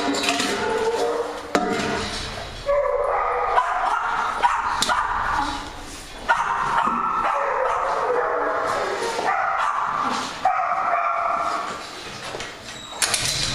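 Several dogs in rescue kennels barking and whining together, with long pitched cries overlapping one another, excited at feeding time.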